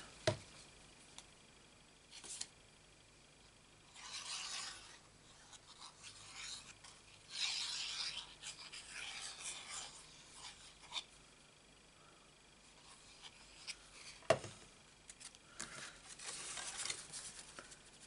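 Sheets of card stock being handled and rubbed on a desk: papery rustling and scraping in a few short stretches, with one sharp tap a little past two-thirds of the way through.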